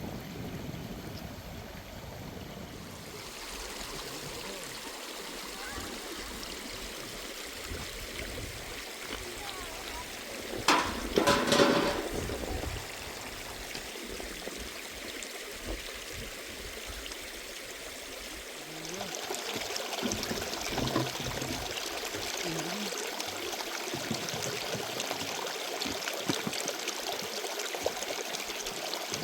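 Running water trickling steadily, growing louder about two-thirds of the way through. A brief pitched vocal sound stands out about eleven seconds in.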